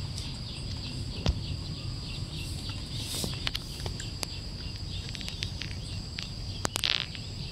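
Insects chirring steadily with a thin high-pitched whine over a low background rumble, with scattered light clicks and a brief rustle near the end.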